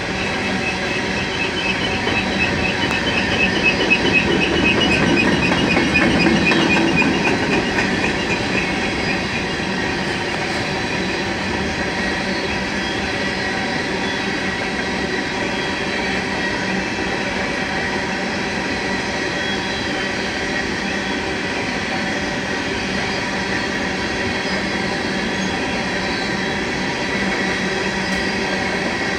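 Coal train cars rolling past at close range, a continuous rumble of steel wheels on the rails. A high wheel squeal pulses for several seconds near the start, while the passing is at its loudest.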